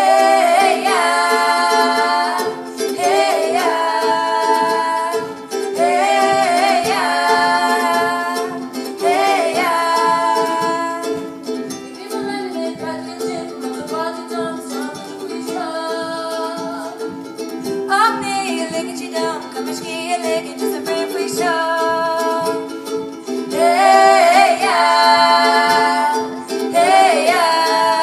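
Live singing in Irish, with long held sung notes, over ukulele strumming steady chords.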